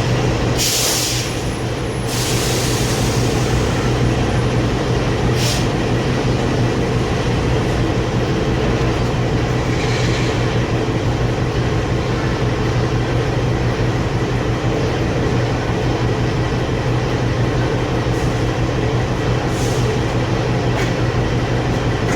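Steady low mechanical rumble and hum, like a running vehicle or machine, with a few short hissing bursts in the first ten seconds.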